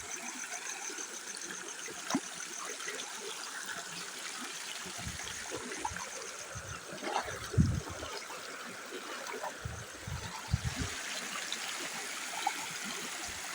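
Rainwater flowing in a small stream or channel: a steady trickle, with a few brief low bumps in the middle.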